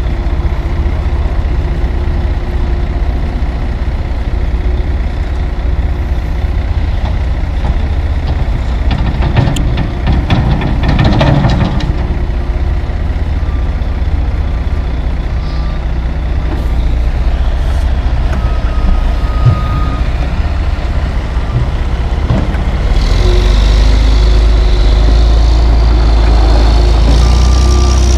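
Loaded Freightliner tandem dump truck's diesel engine idling, with a burst of clattering about ten seconds in. A backup alarm beeps on and off in the second half, and the engine grows louder near the end as a dump truck pulls away.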